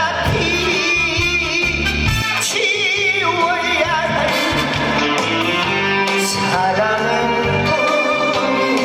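Live Korean trot song: a male singer with heavy vibrato over a band backing.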